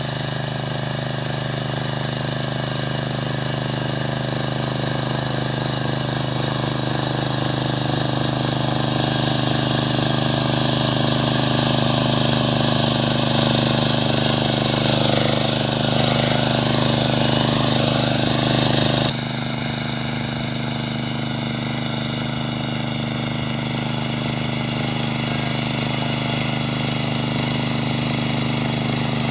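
A 9 hp walk-behind power tiller's engine running steadily, with its rotavator tines churning the soil. About a third of the way in it grows louder with an added hiss, then drops back abruptly about two-thirds of the way in.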